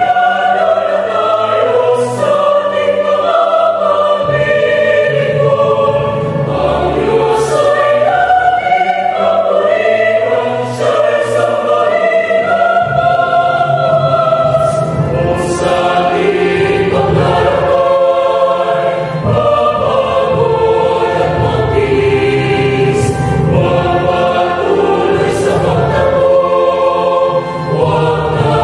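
Mixed choir of women's and men's voices singing a hymn, sustained notes moving in changing pitches without a break.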